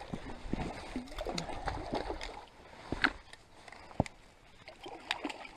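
Lake water lapping and gurgling against shore rocks, with a few sharp clicks and knocks, the loudest about three and four seconds in.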